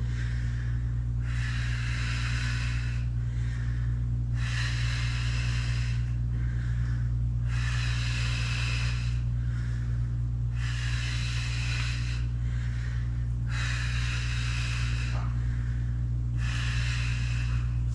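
A woman breathing hard and audibly in time with exercise reps: a loud, hissing breath about every three seconds, six in all, with fainter breaths between. A steady low hum runs underneath.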